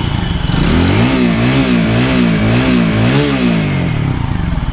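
TVS Apache RTR 4V single-cylinder motorcycle engine blipped about five times in quick succession, the pitch rising and falling with each blip, then settling near the end. The exhaust runs without the hot-pipe rattle, its two loose inner silencer pipes now welded together.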